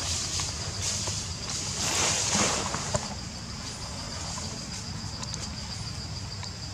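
Forest ambience: a steady high-pitched insect drone over a low rumble, with a brief rustle of leaves about two seconds in.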